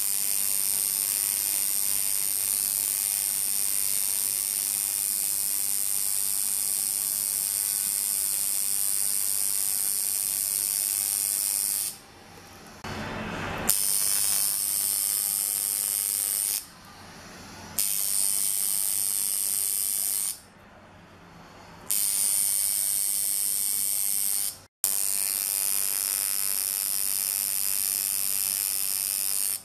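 Tattoo machine running with a steady high buzz while the needle works the skin, stopping briefly four times in the second half before starting again.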